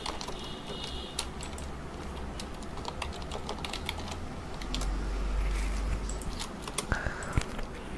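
Computer keyboard typing: a run of irregular key clicks. A low hum comes in for about two seconds around the middle.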